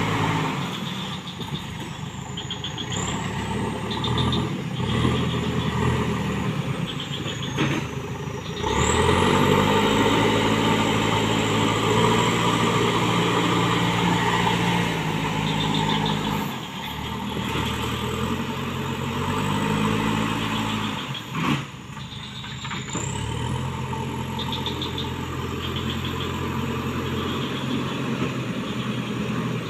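Backhoe loader's diesel engine working under load as it grades soil with its front bucket, the revs rising about a third of the way in, easing back, rising again about two-thirds in, then dropping to a lower steady run.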